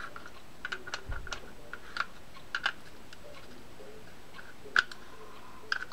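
Light, irregular metal clicks and taps of an open-end wrench working the rotor nut of a spinning fishing reel as it is tightened, with a soft low bump about a second in.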